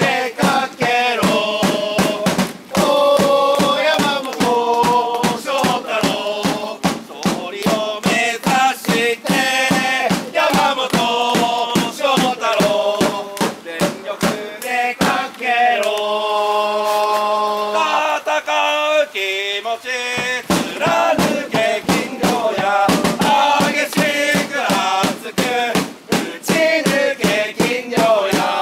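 Group of football supporters chanting in unison to a steady beat on a hand-carried drum. A little past the middle the drum stops for a few seconds while the voices hold long notes, then the beat comes back in.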